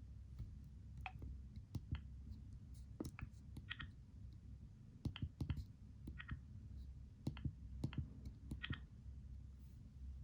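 Keys of a Motorola Razr V8 flip phone being pressed: scattered, irregular clicks, several with a short high beep.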